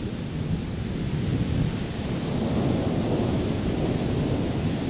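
Distant thunder rumbling, a low continuous roll that swells and fades through the middle.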